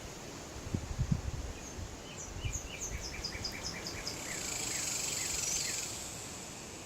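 A songbird sings a quick series of short repeated notes that speed up, then closes with a few down-slurred notes. A high hiss swells for about a second and a half under the end of the song, and a few low thumps of breeze on the microphone come about a second in.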